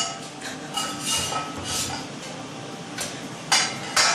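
Kitchenware being handled: pots, pans and utensils knocked together in several sharp clinks and clatters, some ringing briefly, the two loudest near the end.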